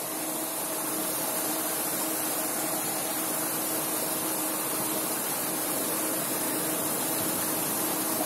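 Spinning reel's line-out clicker buzzing steadily as line is pulled off the spool: a fish has taken the bait on the rod left in its holder.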